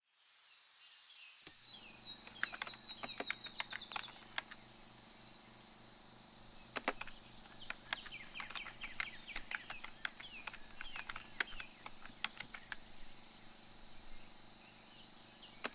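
Insect chorus: a faint, steady high chirring with quick falling chirps and scattered sharp clicks over it. A low steady hum comes in about a second and a half in.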